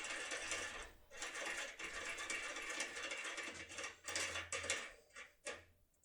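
Securemme K75 foil lockpick being worked in a cylinder lock's keyway: a fast metallic rattling and clicking in long runs, with a short break about a second in, then a few shorter bursts and separate clicks near the end.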